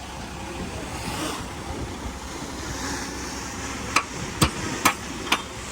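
Heavy earthmoving machinery running with a steady rumble, with four sharp knocks about half a second apart near the end.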